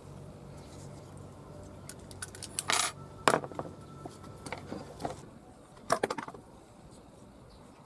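Small metal objects clinking and tapping: a short scraping rattle, then several sharp clicks, the last a quick cluster. A faint steady low hum stops about five seconds in.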